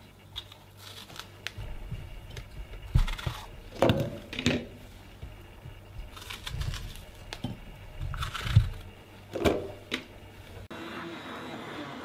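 Strawberries being hulled by hand and dropped into a plastic beaker: irregular soft clicks, rustles and a few louder knocks. Near the end a hand-held immersion blender switches in and runs steadily, puréeing the strawberries.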